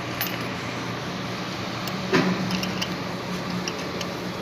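A steady low mechanical hum with two held tones, with a few light clinks and one sharper knock about two seconds in.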